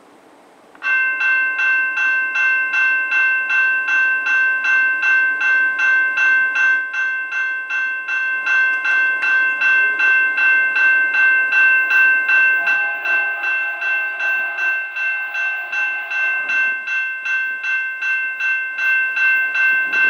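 Railway grade-crossing warning bell switching on about a second in and ringing with rapid, even strikes, activated by an approaching train.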